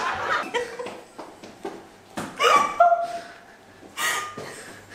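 Women laughing in a few short bursts, about two seconds in and again about four seconds in.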